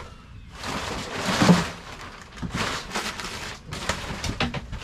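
Plastic tarp crinkling and rustling in two long bursts while a red lawn mower is shifted among the clutter, with a few sharp knocks near the end.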